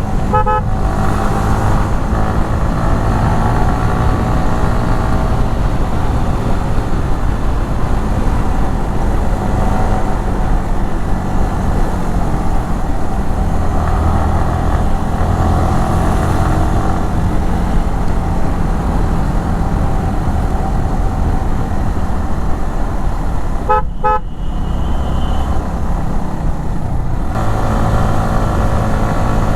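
Yamaha R15 V3's single-cylinder 155 cc engine, through its stock exhaust, pulling the bike along at speed, the revs rising and falling with the throttle. Its stock exhaust is loud.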